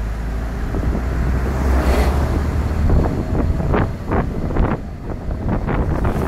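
Wind rushing over the microphone of a camera mounted on the roof of a moving car, over a low road rumble, turning gusty and uneven in the second half.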